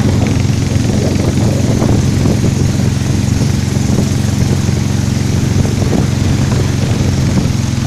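Small motorboat's engine running at a steady, even speed, heard from on board over the noise of water rushing past the hull.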